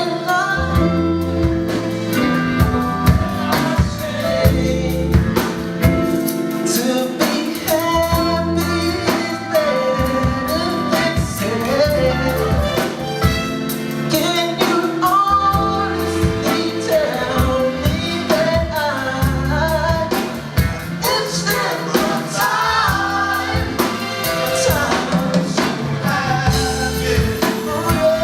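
A live band playing a song, with singing over a bass line and drum kit.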